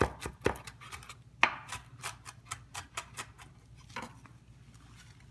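Chef's knife chopping garlic cloves with salt on a wooden cutting board: quick knife strikes, about three to four a second, with one louder blow about one and a half seconds in, growing fainter and sparser toward the end.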